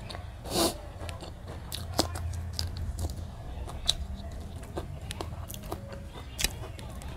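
Mouth eating sounds: chewing and smacking on a mouthful of rice and chicken curry eaten by hand, with scattered sharp wet clicks, the loudest about half a second in. A low steady hum runs underneath.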